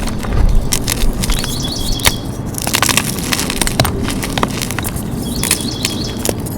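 Dyed gym chalk being crushed, a dense, irregular run of crunching, crumbling crackles.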